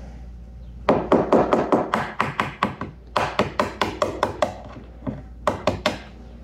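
A brown hen's egg tapped again and again against the rim of a plastic mixing bowl to crack its shell. The taps are light and quick, about five a second, and come in three runs, the last one short.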